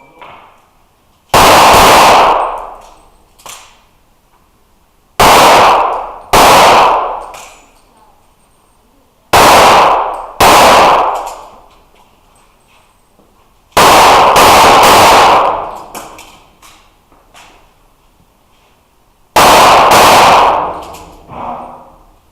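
Pistol shots fired in quick pairs, with pauses of a few seconds between the pairs, as in a practical shooting stage. Each shot is loud and rings out with a long echo off the walls of the indoor range.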